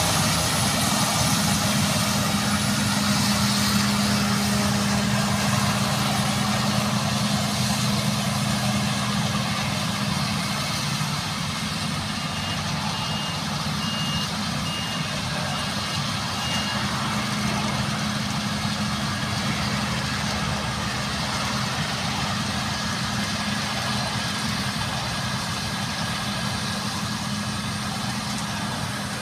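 Claas Lexion combine harvester running steadily while harvesting, its engine a constant drone that eases a little as it moves away. About halfway through, a high beeping alarm sounds about six times in a row.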